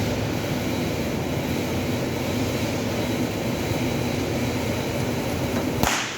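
Steady mechanical hum and crackle from workshop machinery, ending in a short sharp burst near the end.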